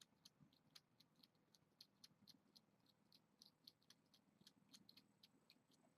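Very faint, irregular soft clicks, about three or four a second, of kittens licking and chewing canned wet cat food from a plate.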